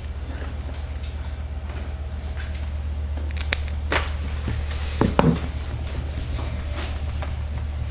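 Eraser wiping a whiteboard, with a few sharp clicks and knocks as magnetic markers are taken off and set back on the board, the loudest pair about five seconds in. A steady low hum runs underneath.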